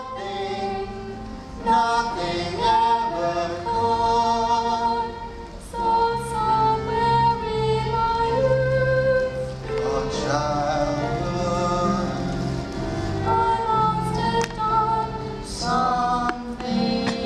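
A woman and a man singing a musical-theatre number with vibrato, over instrumental accompaniment.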